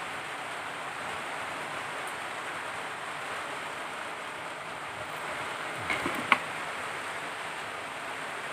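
Steady rushing noise of an electric fan running close to the microphone, with a few small sharp clicks about six seconds in.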